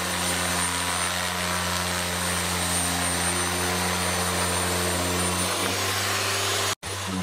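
Festool TPE-RS 100 carpet remover running steadily under load, its motor-driven blade scraping glued carpet residue off the floor. The hum shifts about five and a half seconds in, and the sound cuts off abruptly near the end.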